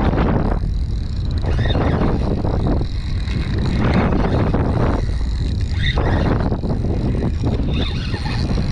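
Wind buffeting the microphone in irregular gusts, with a heavy steady rumble, over water washing against a small boat.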